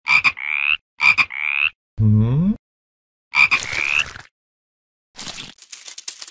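Frog croaking: three short calls, each a quick rattle sliding into a rising squeak, with a low rising tone between the second and third. About five seconds in, a fast dry clicking rattle begins.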